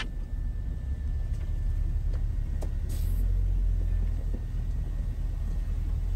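Steady low rumble of a vehicle's engine and tyres on a packed-snow road, heard from inside the cabin while driving slowly.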